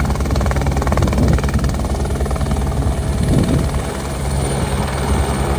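Helicopter running, its rotor blades chopping rapidly and steadily over a low engine drone.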